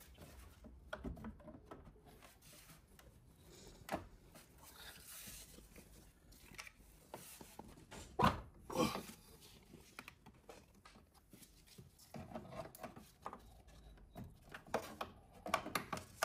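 Plastic engine cover and air intake hose of a VW Golf FSI being handled and pressed into place: scattered light rubs, clicks and knocks, with two louder knocks a little past halfway.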